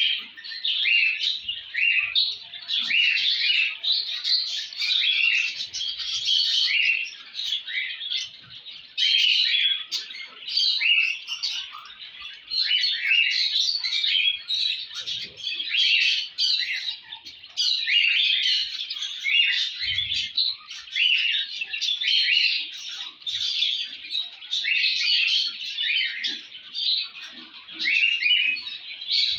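Many small cage songbirds chirping and twittering together in a dense, continuous chorus of short, high calls.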